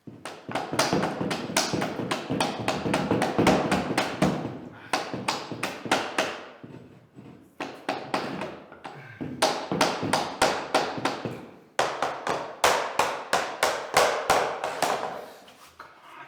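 Vinyl click-lock floor planks being tapped into place: quick, repeated knocks, about three or four a second, in several runs of a few seconds with short pauses between them.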